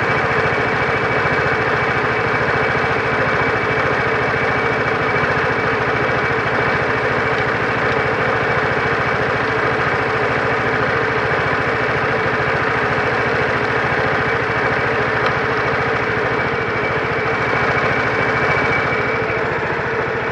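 Vespa GTV 300 ie's single-cylinder four-stroke engine idling steadily while air is bled from its freshly refilled liquid cooling system.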